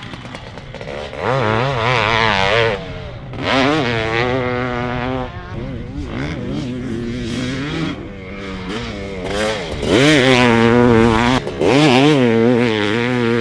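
Race-built 2006 Honda CR500's single-cylinder two-stroke engine being ridden hard, revving in several loud bursts of throttle with its pitch rising and falling, and quieter stretches off the throttle between.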